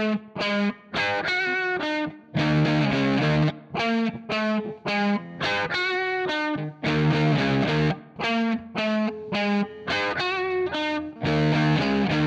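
Electric guitar on its Fishman Fluence P90 bridge pickup, voice 1, played through a Spark modelling amp with a distorted tone. It plays short, clipped chords and riffs with frequent brief stops between them.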